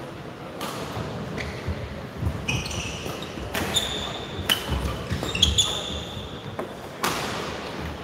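Badminton doubles rally: racket strikes on the shuttlecock about once a second, with court shoes squeaking on the floor between shots.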